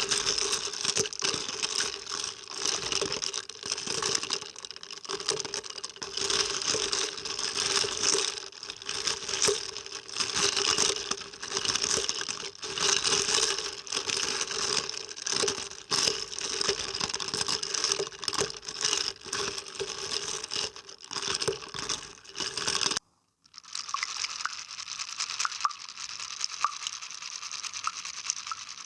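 Close-miked water being played with: a dense, crackly run of small splashes, drips and bubble pops. About 23 seconds in it cuts out for a moment, then comes back as a quieter, sparser crackle.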